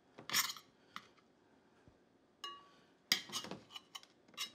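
Metal spoon clinking and scraping against a metal saucepan while green beans are scooped out. There are several sharp clinks, one that rings briefly about two and a half seconds in, and a quick run of knocks about three seconds in.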